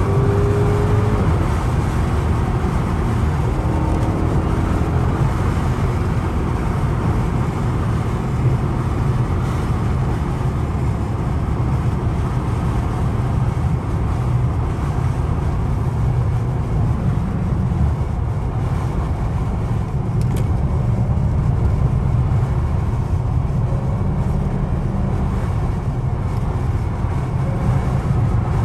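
Dodge Hellcat Redeye's supercharged 6.2-litre V8 and road noise, cruising steadily at speed.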